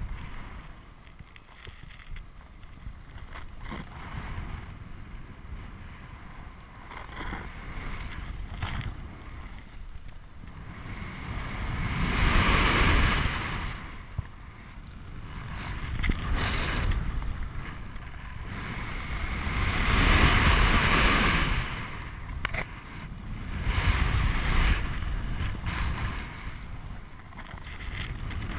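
Wind rushing over the camera microphone of a paraglider in flight. It stays fairly even at first, then from about a third of the way in it swells and fades about every four seconds as the wing swings through steep banked turns.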